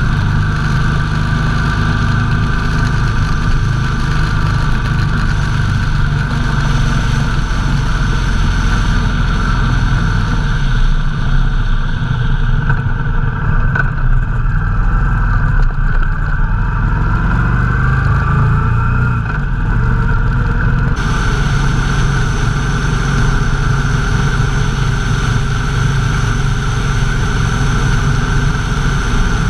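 Motorcycle engine running while riding, with wind rushing over the microphone. About halfway through, the wind noise drops away for several seconds as the bike slows through a turn and the engine note shifts, then the rush comes back abruptly.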